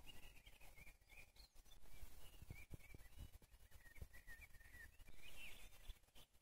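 Faint birdsong: small birds chirping and twittering continuously, with a few soft low thuds about halfway through.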